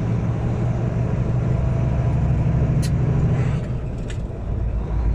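Truck's diesel engine running steadily, heard from inside the cab, with two faint clicks in the second half.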